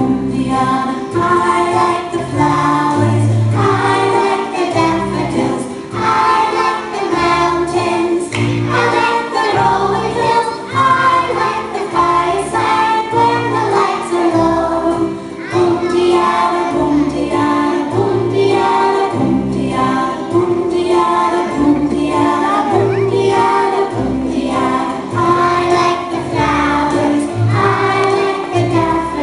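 A group of children singing a song together with instrumental accompaniment, its bass notes recurring at a steady pace.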